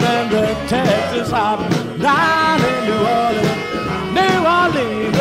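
A rock-and-roll song, a singer over a band, playing as background music.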